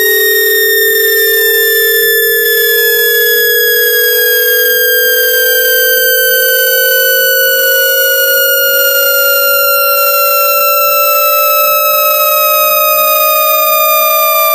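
Synthesized speaker-cleaning test tones, loud and at constant level: a low tone slowly rises in pitch while a higher tone slowly falls, with a faint warble repeating about once a second.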